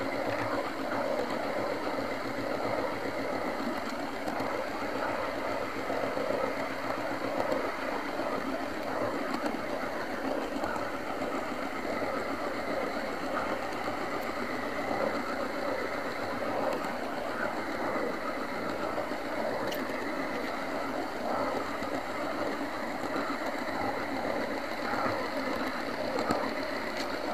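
OO gauge model train running along a garden track, heard from on board: a steady whir from its small electric motor and the rattle of its wheels on the rails, with occasional faint ticks.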